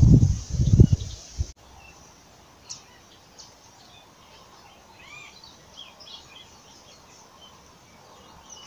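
Wind rumbling on the microphone in loud, uneven gusts, which cuts off abruptly about a second and a half in. After that, small birds chirp in short, arched calls over a quiet background.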